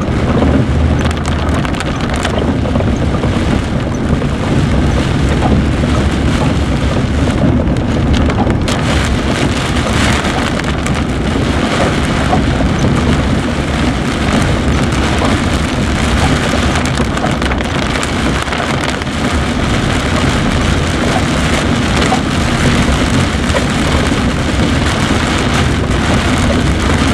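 A vehicle driving slowly on a flooded gravel road in heavy rain. Rain is spattering steadily over a low, continuous engine and tyre rumble, with water and gravel noise from the wheels.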